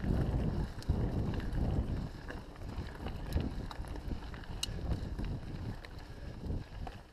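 Wind rumbling on the microphone of an enduro mountain bike descending a dirt trail at speed, with tyre noise over the ground and scattered sharp clicks and rattles from the bike.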